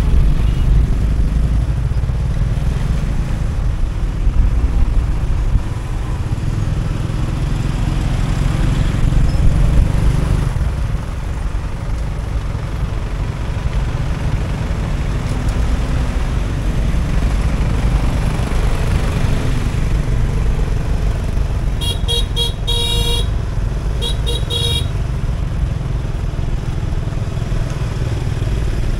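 Motorbike and road-traffic noise with a steady low rumble. A vehicle horn beeps in two quick runs of short toots near the end.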